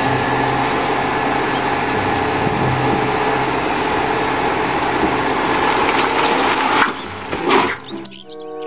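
Steady, engine-like running noise with a low hum for the dump truck, cutting off about seven seconds in. A few knocks and clatters follow near the end.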